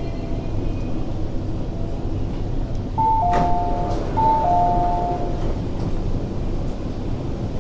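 Steady rumble inside an MTR SP1900 (IKK-train) car at a station stop. About three seconds in, the door chime plays a falling two-note pattern twice as the doors open, with a short knock from the doors between the two.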